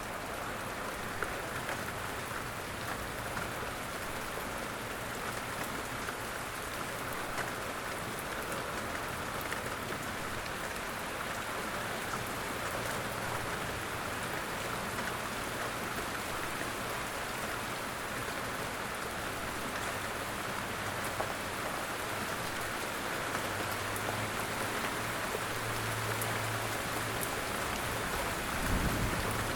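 Steady light rain falling in woodland, an even patter of drops with scattered individual drips. A faint low hum sits underneath in the second half, and there is a brief low thump just before the end.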